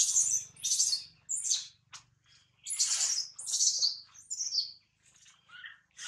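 Newborn macaque crying for its mother in shrill, bird-like squeals: a run of short calls in two bursts, then fainter ones near the end.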